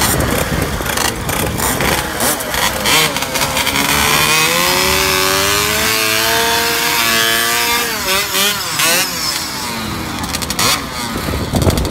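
Small motorcycle engines running and revving. About four seconds in, one engine's revs rise, hold for several seconds, then drop away.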